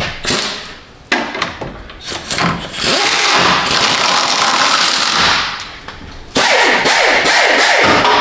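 Quarter-inch impact wrench running in the bolts of the active grille shutter frame, in two runs of about two and a half and two seconds, the second with its pitch wavering and dropping. A few sharp clicks of handling come before them.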